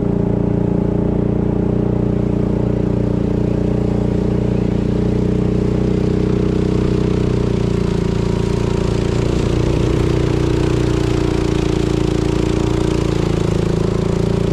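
Boat engine running steadily at constant speed.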